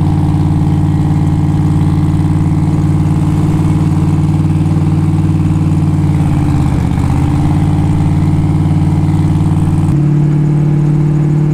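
Twin-turbo 427 cubic-inch Dart LS V8 in a Camaro holding a steady highway cruise, heard from inside the cabin with a window open. The engine note dips briefly and recovers about six to seven seconds in, then changes abruptly near the end.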